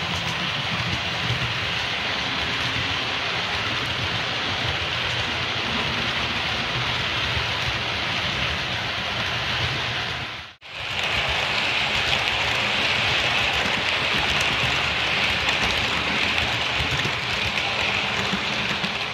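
OO-gauge Hornby HST model running on its track: a steady rushing whirr of the motor and the wheels on the rails, with no engine sound since the model has no sound decoder. The sound cuts out briefly about ten seconds in, then resumes.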